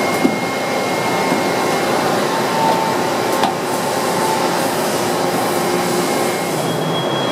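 Okuma Multus B300 W multi-tasking turning center running a dry-run program, with no cutting: a steady mechanical whir as the milling head moves, with faint high whining tones and a single click about three and a half seconds in.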